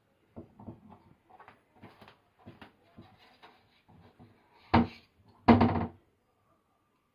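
A run of light knocks and rattles, then two loud thuds about half a second apart, the second one longer.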